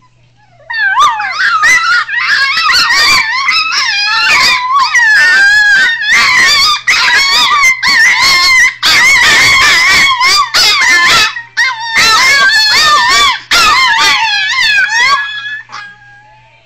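American Hairless Terrier pups 'talking': a long, almost unbroken run of howl-like whining and yowling that bends up and down in pitch, starting about a second in and dying away near the end.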